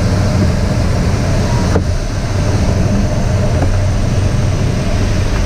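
Steady rush and low rumble of airflow over an engineless Schleicher ASK 21 glider's canopy and fuselage, heard inside the cockpit in flight. A single brief click comes about two seconds in.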